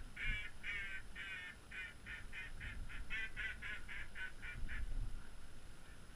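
Waterfowl calling: a series of about fourteen raspy calls, the first ones longer, then shorter and quicker, stopping about five seconds in.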